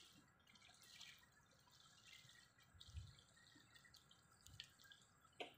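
Near silence: faint, irregular ticks and drips from a spinning reel winding in a hooked fish on a bent rod, with two soft low thumps near the middle.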